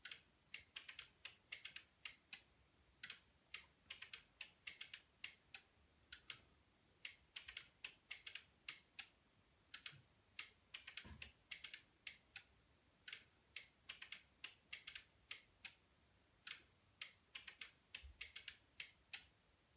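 Faint, irregular clicking in small quick clusters from a home-built relay computer's control-panel pushbuttons and the relays they switch, as a program is stepped back out of memory.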